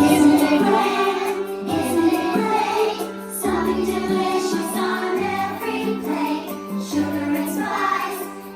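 A group of children singing a song together to a keyboard or piano accompaniment.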